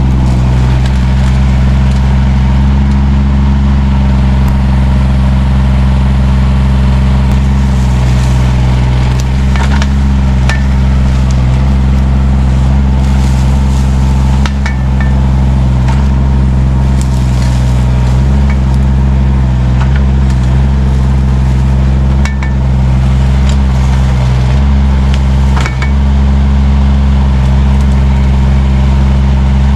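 Mini excavator engine running steadily, its note shifting slightly every few seconds as it takes load. Several short sharp knocks and snaps from the machine working the brush.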